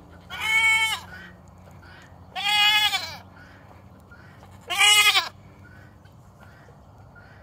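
A goat bleating loudly three times, each call under a second long with a pitch that rises and then falls.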